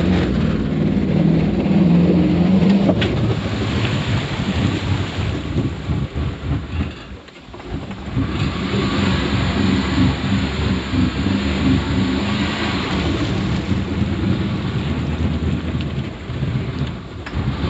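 A Jeep Grand Cherokee ZJ's 5.2-litre V8 running hard while the vehicle wades through deep water, with water rushing and splashing against it. The sound drops away briefly about seven seconds in.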